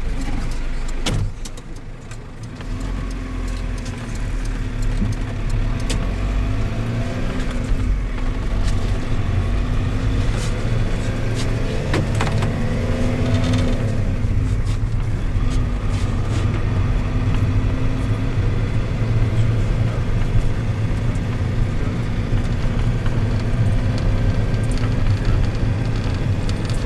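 Engine and road noise heard inside a moving minibus, a steady low rumble. Between about 10 and 14 seconds in the engine pitch rises and then drops again as it picks up speed.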